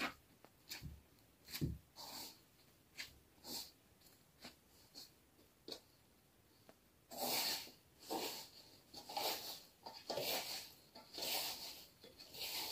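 Naan dough being kneaded by hand in a metal bowl: soft squelching pushes, about one a second in the second half, with scattered light knocks and clicks before.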